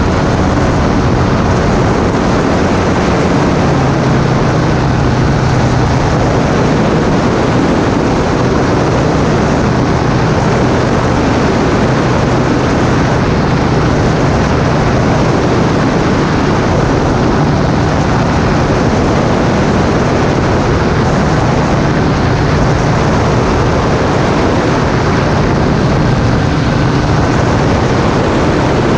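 Flexwing weight-shift microlight's engine and propeller running steadily, loud and unbroken, over a constant rush of noise.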